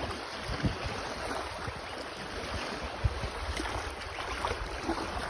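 Small waves washing against a rock shoreline, with wind buffeting the microphone and one brief bump about three seconds in.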